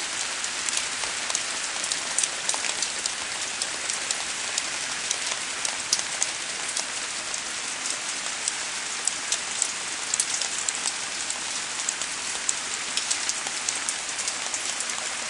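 Steady rain falling in a garden: a constant hiss with a dense patter of separate drops hitting.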